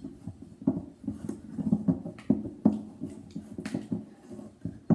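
Mixing tool stirring glue and food colouring in a bowl, with irregular knocks and scrapes against the bowl, roughly two a second.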